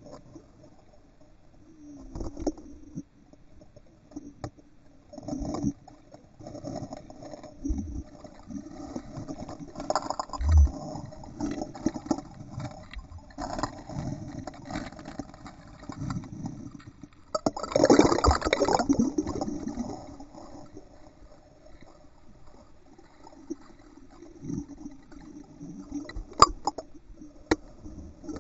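Muffled underwater sloshing and bubbling of an Entlebucher Mountain Dog paddling close to the camera, heard through a sealed underwater camera housing. It comes in irregular swishes, with a louder rush of bubbles about two-thirds of the way through.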